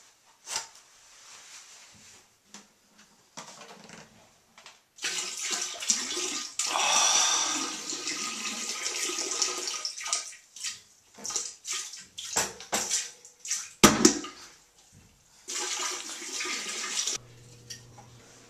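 Water splashing and spattering into a toilet bowl in bursts several seconds long, with one sharp, loud splash about 14 seconds in: a mock bout of diarrhea.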